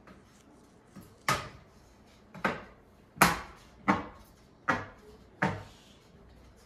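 A 120 mm computer fan being pressed down with the heel of the hand onto plastic push pins in a grill: six sharp knocks, each under a second after the last, as the fan is seated.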